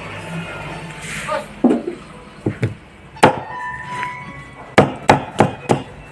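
Chayote being chopped with a knife on a wooden board: a few scattered chops, the loudest about three seconds in, then a quick run of four chops near the end.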